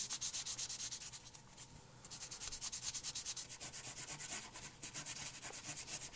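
A 1500-grit 3M Trizact sanding pad rubbed by hand over a zinc die-cast toy part in rapid back-and-forth strokes, with a short pause about a second in before the strokes resume. The sound is of the zinc surface still being rough.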